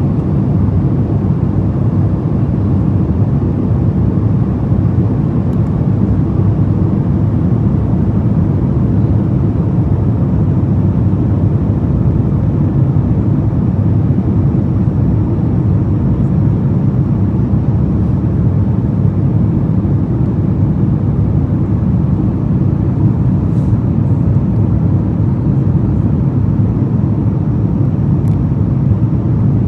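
Airliner cabin noise in flight, heard from a window seat: a steady, low rush of the jet engines and airflow.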